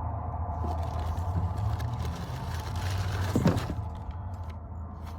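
Road traffic going by: a steady low rumble with a passing vehicle's rush swelling over the first few seconds. A single short knock comes about three and a half seconds in.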